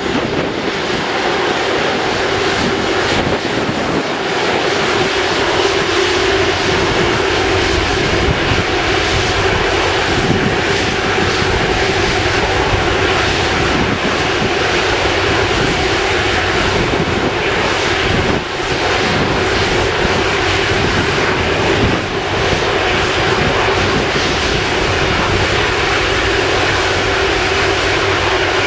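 Airbus A330-243F freighter's Rolls-Royce Trent 700 jet engines running steadily at low power as it moves slowly onto the runway: a constant rumble with a steady mid-pitched whine.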